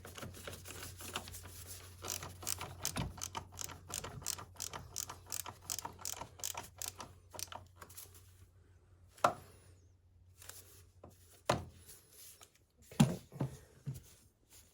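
Rapid clicking and rattling of hard plastic parts as the coolant (radiator water) reservoir box is worked back into place in the engine bay, followed by a few separate knocks.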